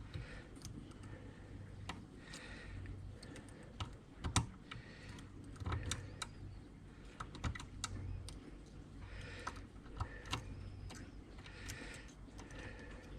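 Faint, irregular small metallic clicks of a tubular lock pick working the pins of a 7-pin tubular padlock as it is picked, with a few sharper clicks about four and six seconds in.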